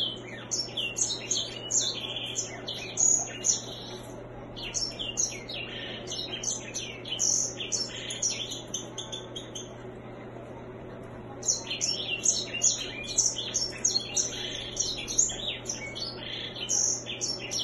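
Grey singer (white-rumped seedeater, Serinus leucopygius) singing a quick run of high chirps and trills. It pauses for about two seconds around the middle, then starts again.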